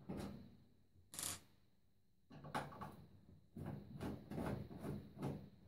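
A screwdriver undoing the screws of a microwave's sheet-metal outer cover: small scrapes and clicks of metal on metal. There is a short hissing scrape about a second in, a pause, then a busy run of scraping and clicking from a little past two seconds on.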